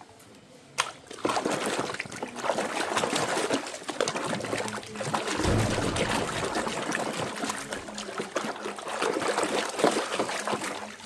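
Water trickling and splashing as toy cars are washed, starting about a second in after a short click, with a dull thump near the middle.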